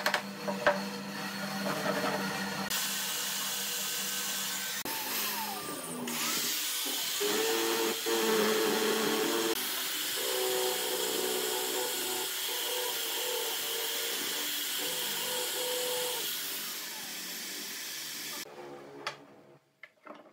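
Power tools running: an electric drill spins a small wooden piece against a sanding disc, a steady motor whine with sanding hiss. Near the end the machines stop and a few light knocks of wood follow.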